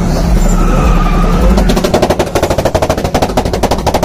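A drifting car's engine and spinning rear tyres: a steady loud rumble that turns, about two seconds in, into a rapid, even staccato of about a dozen pulses a second.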